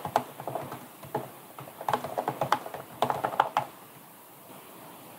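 Fast typing on a computer keyboard, keystrokes clicking in quick runs that end with a rapid mash of random keys. The typing stops a little over halfway through.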